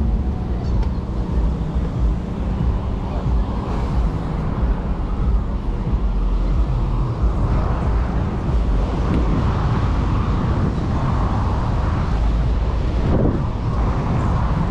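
Seafront street ambience: a steady low rumble of wind buffeting the microphone, mixed with passing traffic.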